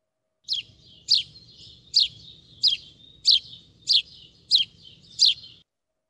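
House sparrow calling: eight short, sharp cheeps, each sliding downward in pitch, at an even pace of about one and a half a second, over a faint low background hiss.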